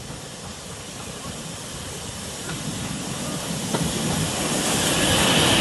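Heritage train drawing in with a steady hiss that grows louder throughout, brightest near the end.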